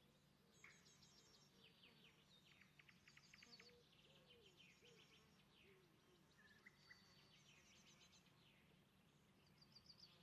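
Near silence, with faint scattered bird chirps and calls.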